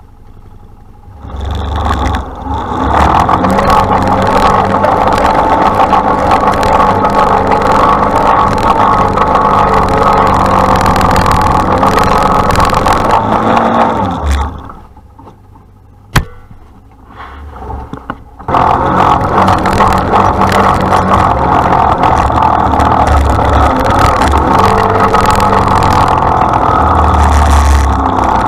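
Honda Pioneer 500 side-by-side's single-cylinder engine running hard under load as it climbs a sand hill, heard from inside the cab. About halfway through it drops to a quiet lull with one sharp click, then comes back loud.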